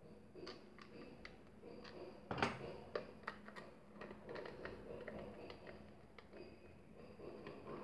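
Small screws being picked up and driven by hand screwdriver into the plastic housing of a stick blender during reassembly: faint scattered clicks and ticks, with one louder click about two and a half seconds in.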